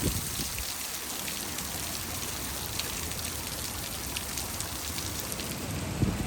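Heavy typhoon rain falling steadily, a dense hiss with many sharp taps of individual drops hitting close surfaces. A brief low rumble comes right at the start and again near the end.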